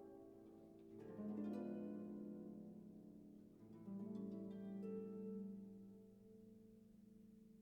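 Soft background music of slow plucked-string notes, like a harp, each note ringing out and fading, with new notes coming in about a second in and again near the middle.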